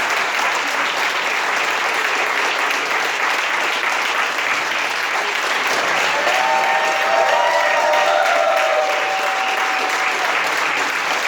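Crowd applauding steadily, with a few held cheering voices rising over the clapping about six seconds in.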